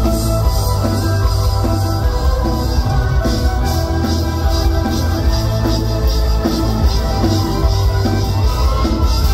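A live band playing a loud, driving instrumental rock number: electric violin over a drum kit and electric guitar, heard from the audience.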